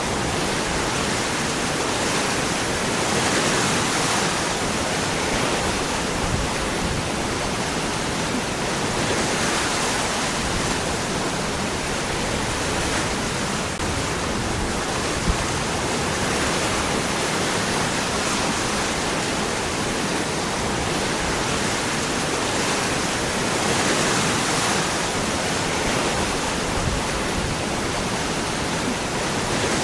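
Waterfall: water falling and rushing between rocks in a steady, full rush that swells gently every few seconds.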